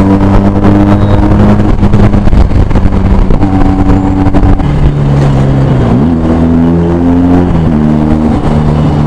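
Benelli TNT 300's parallel-twin engine running through a LeoVince Cobra aftermarket exhaust, heard from the rider's seat under way. The engine note holds steady, then falls and climbs in steps, with a rising rev about six seconds in.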